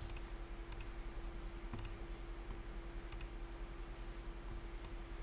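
A handful of sharp, irregularly spaced clicks from a computer mouse and keyboard, over a steady low hum.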